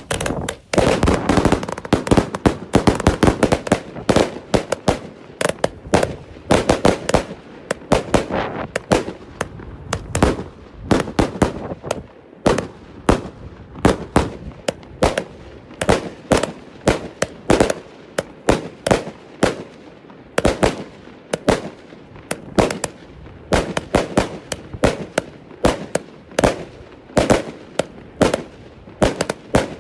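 Homemade firework fountain spewing a column of sparks, with a rapid, irregular crackle of sharp pops, several a second. A denser rushing hiss lies under the pops in the first few seconds.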